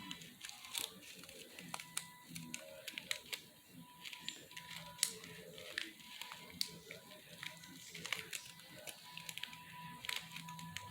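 Small container of foam beads being shaken and handled: irregular light clicks and rattles, over a faint steady tone.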